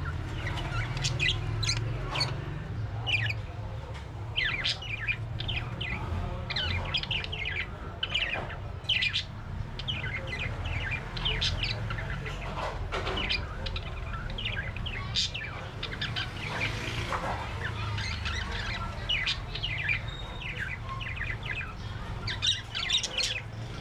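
A flock of Australian parrots chirping and squawking, many short overlapping calls throughout, over a steady low rumble.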